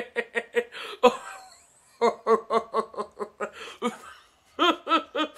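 A person laughing in three runs of quick, rhythmic 'ha-ha' pulses, about six a second, with short pauses between the runs.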